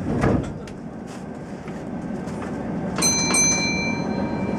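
The Kintetsu 1233 series train's sliding doors close with a thud. About three seconds later a signal bell strikes twice and rings on, the signal for the train to start.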